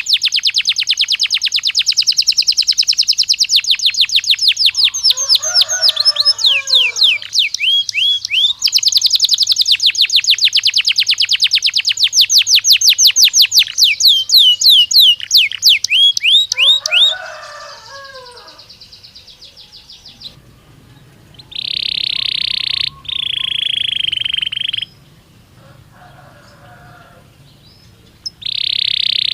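Domestic (Belgian) canary song: long, very fast trills of repeated sweeping notes with lower rattling phrases, then from about two-thirds through a quieter stretch with long held notes. This is the kind of recorded song played to a caged canary to stimulate it to sing.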